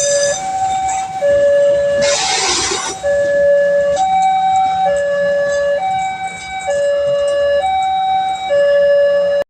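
Railway level-crossing warning siren sounding a two-tone hi-lo alarm, switching back and forth between two steady pitches, each held for under a second. A brief rushing noise cuts across it about two seconds in.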